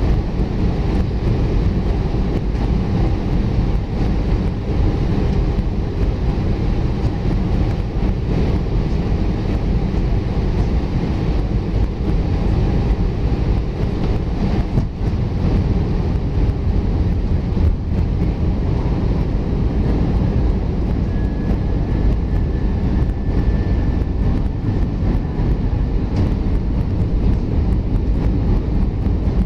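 Airbus A320 cabin noise on the descent for landing: the steady rumble of the jet engines and rushing air, heard from a window seat beside the wing. A faint steady whine sits on top for a few seconds in the second half.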